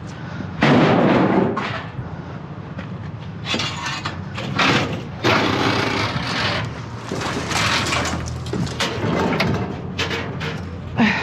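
Scrap metal and old appliances being thrown down and dragged about, a series of loud metal bangs and crashes over a steady low hum.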